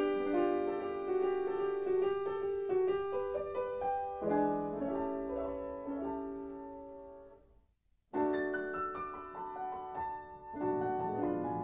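Piano music, notes held and moving in a melody, fading away to a moment of silence a little under eight seconds in, then starting again.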